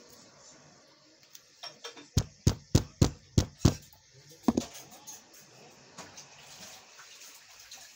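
Sharp metal-on-metal knocks: about six quick blows at three or four a second, then one more after a short pause.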